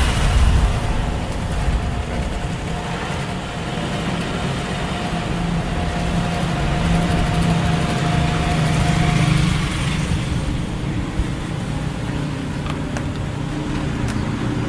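Steady motor-traffic noise with a low rumble; a vehicle engine tone holds steady for a few seconds in the middle.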